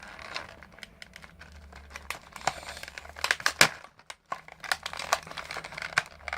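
Toy packaging being handled and opened: a run of crinkling and sharp crackles, loudest a little past the middle, with some tearing.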